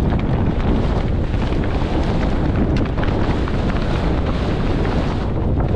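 Wind buffeting the microphone with the rattle and knocks of a mountain bike rolling fast over rocks on a steep descent.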